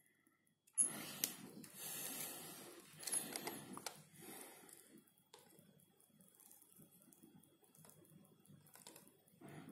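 Faint handling noise from hand-soldering a perfboard: a clatter and rustle about a second in, with a few light clicks through the next few seconds, then a quieter scattered crackle as the soldering iron is worked along a solder trace.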